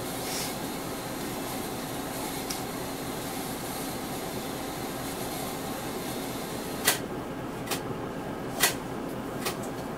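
Cabin sound inside a Mitsubishi Aerostar one-step city bus: a steady hum of engine and ventilation, with a few sharp clacks about a second apart near the end.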